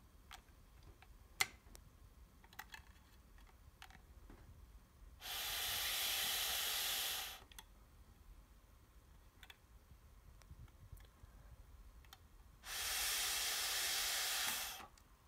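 Breath blown through a straw into the two ports of a differential pressure sensor: two steady hisses of about two seconds each, the first about five seconds in and the second near the end, with a few faint clicks before them.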